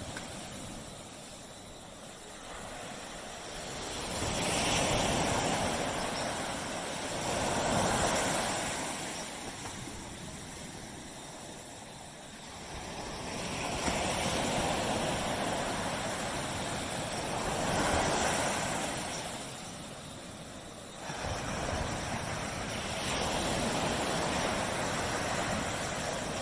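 Ocean waves breaking and washing up a beach, swelling and ebbing in slow surges every few seconds, with a sharper break just after two-thirds of the way through.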